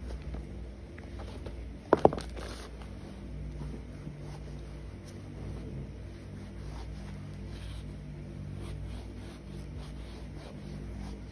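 A cleaning wipe rubbing over a sneaker, making soft, uneven scratchy scrubbing sounds, with a sharp double knock about two seconds in as something bumps close to the microphone. A steady low hum runs underneath.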